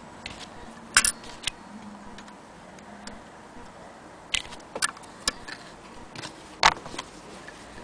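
Willcox & Gibbs sewing machine being handled: a handful of sharp clicks and taps at irregular intervals, the loudest about a second in and near the end.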